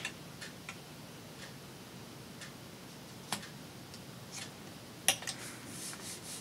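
Light, sharp clicks and taps of paper pieces and craft supplies being handled and placed on a work table, a handful spread over the seconds, two of them louder, with a soft rustle of paper near the end.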